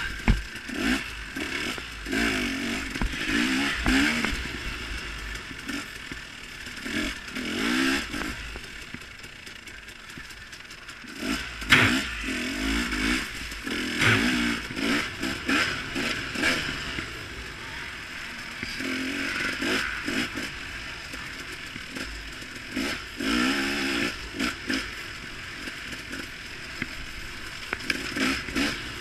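KTM 250 XC two-stroke dirt bike engine revving in repeated surges as it is ridden through a rough wooded trail. Knocks and rattles come from the bike over the ground, the sharpest about twelve seconds in.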